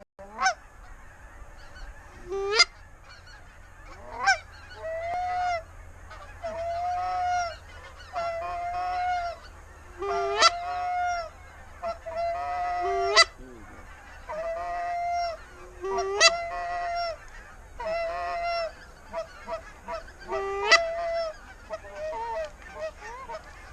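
Geese honking over and over: sharp upward-sweeping honks every two to three seconds, alternating with longer, steady honks about a second each.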